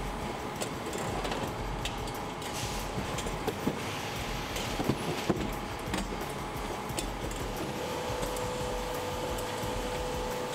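Packaging-line machinery running: a case packer loading gallon plastic bottles into cardboard cases, with a steady hum and scattered clacks and knocks. A second steady tone joins in the last few seconds.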